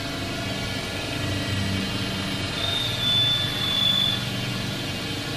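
Tormach Slant-Pro CNC lathe running with its spindle turning, a steady mechanical hum, as the carbide tool is jogged into a hardened steel dowel pin. A thin high whine comes in for about a second and a half around the middle. The cut takes off little metal because the pin is being pushed back into a collet that is not tight enough.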